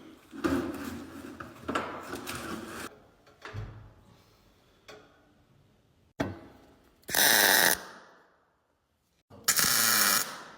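Handheld laser welder firing in two short bursts, each a loud steady hiss lasting under a second, about seven and nine and a half seconds in. Before them, scattered knocks and clatter of metal.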